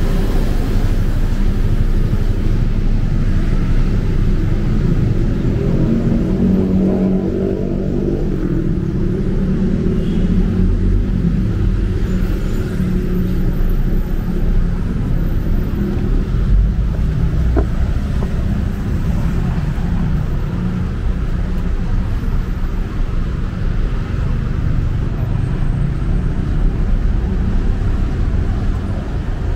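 Steady road traffic on a busy multi-lane city road, cars and taxis driving past close by with a low rumble of engines and tyres. A passing vehicle's engine stands out louder around seven seconds in.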